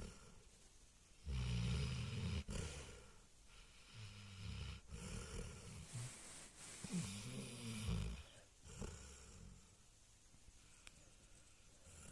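An Alabai (Central Asian Shepherd Dog) puppy snoring heavily in its sleep, a deep snore about every two to three seconds, the snores growing weaker near the end.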